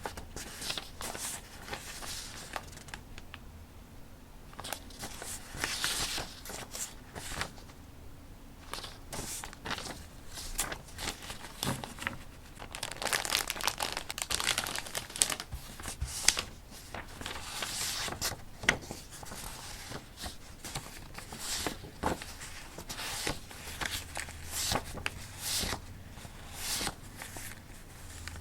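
Sheets of vintage paper being handled, rustling and crinkling in irregular bursts.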